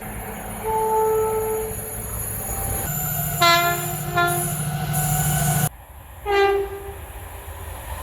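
Train horn sounding in several short blasts, one about a second long near the start, a pair around the middle and a brief one near the end, over the steady low running of a locomotive. The sound changes abruptly between spliced clips.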